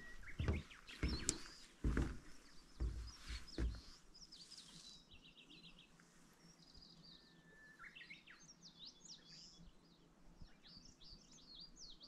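Several wild songbirds singing and calling, fairly faint: short chirps, whistled notes and a quick trill of repeated notes. A string of low thumps runs through the first few seconds.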